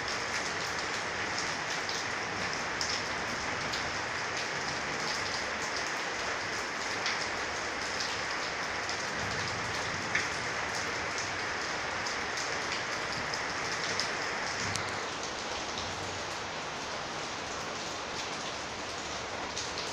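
Heavy rain pouring steadily, with occasional sharper drop sounds close by; it eases slightly about fifteen seconds in.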